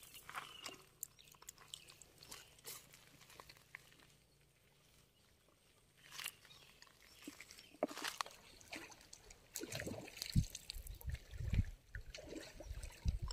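Scattered small crunches and clicks on river pebbles, with faint sloshing of water in a bucket. From about ten seconds in come louder, irregular low thumps.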